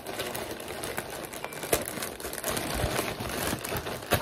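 Plastic poly mailer bag crinkling and rustling as it is handled and pulled open, with many sharp crackles along the way.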